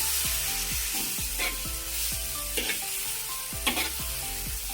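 Chopped banana stem sizzling in hot oil in a wok while a spatula stirs it, with a scrape of the spatula about once a second over a steady hiss of frying.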